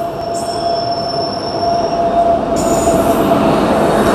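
An Indian Railways express passenger train hauled by an electric locomotive pulls into a station platform. The rumble of its wheels on the rails grows louder as the coaches roll past, with steady squealing from wheels and brakes as it slows to stop.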